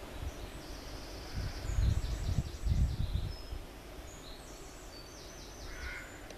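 Small birds singing in short, quick, high trilled phrases, over a low rumble that swells about a second and a half in and dies away after about three seconds.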